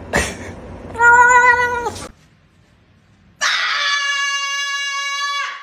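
A cat calling: a brief knock at the start, a meow of about a second, then after a short pause a long, steady yowl of about two seconds.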